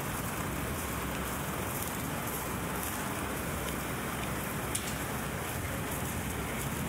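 Steady city street ambience: an even, continuous hiss with one faint click about five seconds in.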